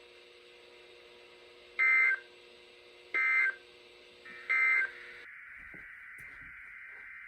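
Emergency Alert System end-of-message data bursts: three short, loud, buzzy digital tone bursts about a second and a half apart, marking the close of the alert. After the third burst, a steady hiss takes over from the radio.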